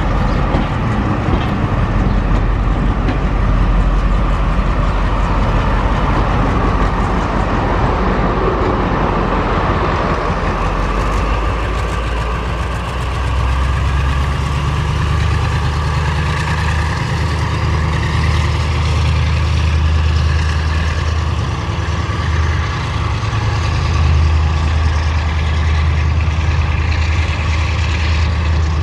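Heritage train coaches rolling past on the rails, then a Class 35 Hymek diesel-hydraulic locomotive at the rear of the train passing with its engine running. From about thirteen seconds in there is a steady deep engine drone that carries on as the locomotive draws away.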